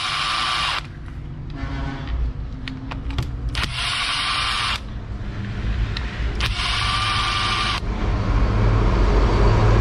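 Cordless drill-driver backing out the screws of a brush cutter's clutch housing, its motor running in three short spells of about a second each: at the start, about four seconds in and about seven seconds in. A low rumble grows louder near the end.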